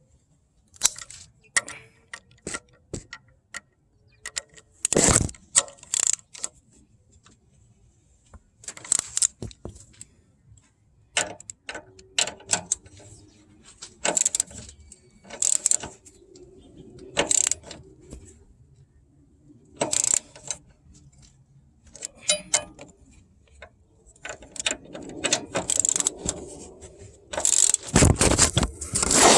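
Metal hand tools clinking and clattering in irregular bursts, with a busier stretch of clattering near the end.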